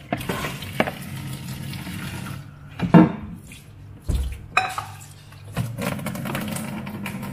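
Metal strainer clanking and knocking against a stainless steel sink, a few separate knocks with the loudest about three seconds in, over a running tap.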